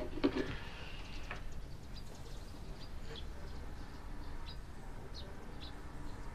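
Quiet room tone with faint, scattered bird chirps, short and high, about one a second.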